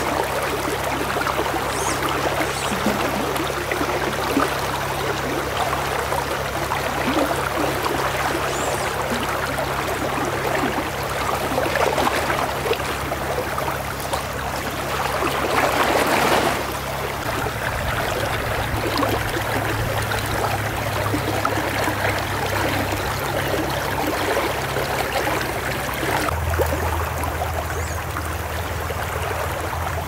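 Shallow river riffle: water running and splashing steadily over rocks close by, swelling briefly louder about halfway through.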